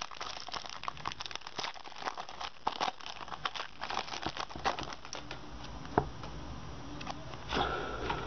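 Foil Pokémon card booster pack wrapper crinkling as it is torn open and pulled apart by hand. The crinkling thins out about five seconds in, followed by a single sharp tap about a second later.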